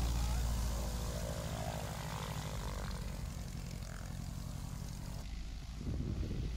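Van's RV-7 light aircraft's piston engine and propeller running steadily as it taxis, with an abrupt change in the sound about five seconds in.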